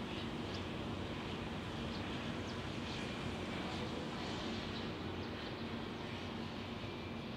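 Steady background rumble with a low hum, with a few faint, short high chirps scattered through it.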